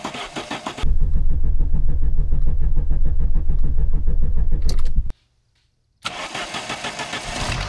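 Turbocharged four-cylinder engine of a Dodge Lancer Shelby being cranked by the starter, catching about a second in and running with a loud, steady low rumble, apparently its first start after a cylinder head swap. The sound cuts off abruptly about five seconds in; after a second of silence a similar pulsing, cranking-like sound returns.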